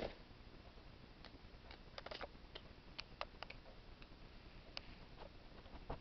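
Soft-coated wheaten terrier puppy licking, heard as a faint, irregular scatter of short clicks and smacks of its tongue and mouth, with a slightly louder one at the very start.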